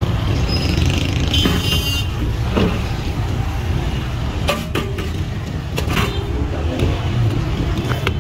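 Street traffic ambience: a steady low rumble of passing vehicles, with a brief high-pitched squeal about a second and a half in and a few sharp knocks in the second half.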